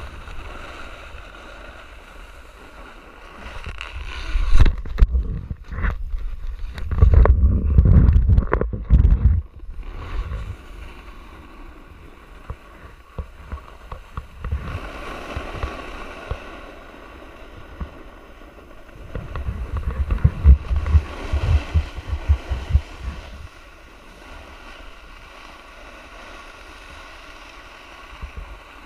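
Skis hissing and scraping over groomed snow on a downhill run, with wind buffeting the microphone. The buffeting grows loud and choppy twice, from about four to ten seconds in and again around twenty seconds in.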